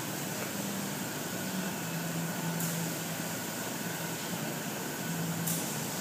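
Steady whir of a large running fan, with a low hum that comes and goes and a short high hiss twice.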